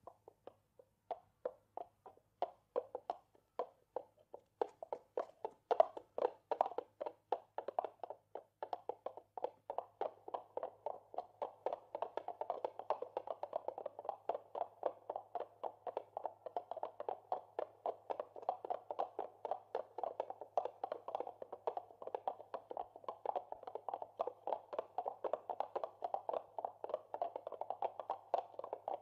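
A clatter of quick taps, sparse and uneven at first, thickening after about ten seconds into a dense, steady patter, over a faint steady low hum.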